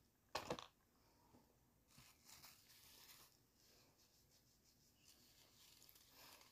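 A short sharp papery rip about half a second in, then faint rustling: a paper tissue being pulled out and handled. Otherwise near silence.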